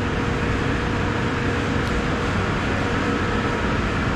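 Steady background noise of running machinery: an even, constant rush with a faint steady tone through it.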